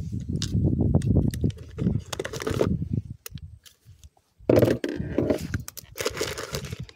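Hands rummaging in a plastic cooler of fishing tackle: thumps, clicks and clatter of small items, a brief pause, then a louder knock and plastic bait bags crinkling near the end.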